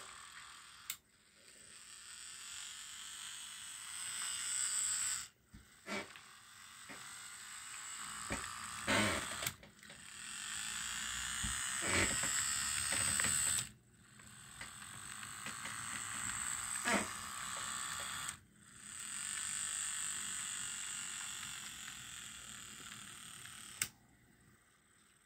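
Life-Like N-scale Pennsylvania E8 model locomotive's DC motor and gears running with a high whine. It comes in several stretches that each grow louder, broken by about four short stops, with a few sharp clicks.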